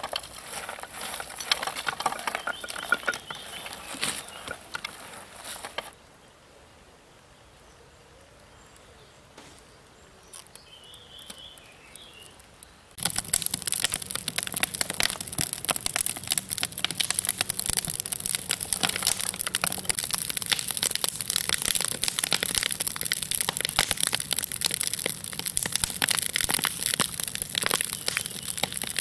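Dense crackling from silver-bearing galena ore being roasted over a fire. The crackling drops to a faint patter for several seconds, then comes back loud and dense about halfway through.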